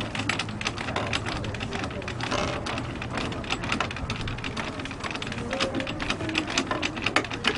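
Casket-lowering device letting a casket down into a grave, with a rapid, continuous run of mechanical clicks; voices in the background.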